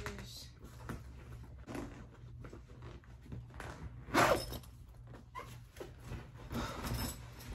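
Fabric rustling and handling noises as clothes are packed into a cloth duffel bag, in a few short bursts, the loudest about four seconds in, over a steady low room hum.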